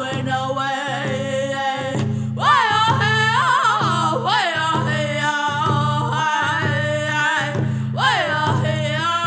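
Round dance song sung in high voices by two boys on wordless syllables, over a steady frame hand drum beat of about three beats every two seconds. The voices pause briefly and a new phrase starts about two seconds in.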